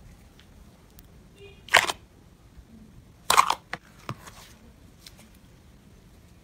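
Yellow slime being pressed and stretched by hand, letting out sharp popping clicks as trapped air bursts: two loud pops about two and three and a half seconds in, then a couple of smaller clicks just after.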